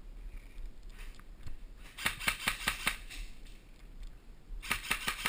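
Airsoft guns firing: two short rapid bursts of sharp snapping shots, about eight a second, the first lasting about a second and the second about half a second near the end.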